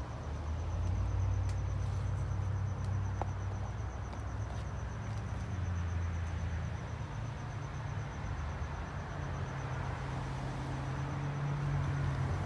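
A cricket trilling steadily at a high pitch, with a low, wavering rumble underneath.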